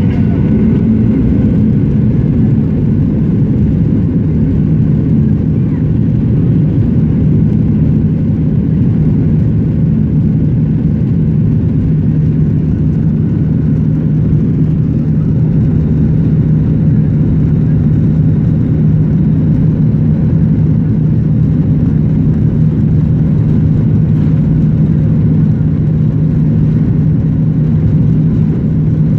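Cabin noise of a Boeing 737-800 taxiing: its CFM56 engines run at low thrust, an even low rumble and hum with a steady low drone that comes through more clearly about halfway through.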